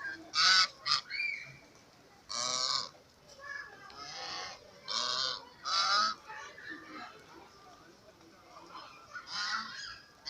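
Geese honking: a series of loud, harsh calls, about eight in all, with a lull of about two seconds before the last few.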